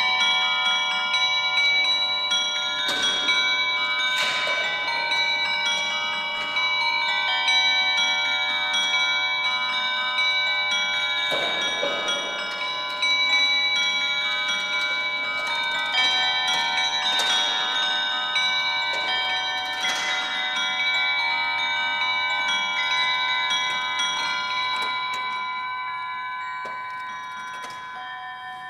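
Bell-like chiming music from the silver swan automaton's clockwork musical movement: many ringing tones at different pitches struck one after another and left to sound on, with faint ticking, dying away near the end.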